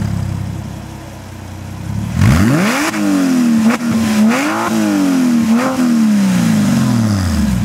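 Porsche Cayman S flat-six engine through a custom exhaust under a hard acceleration run. The note falls and quietens, then about two seconds in it revs up sharply and climbs through several shifts, with the pitch rising and dropping at each, before falling away near the end.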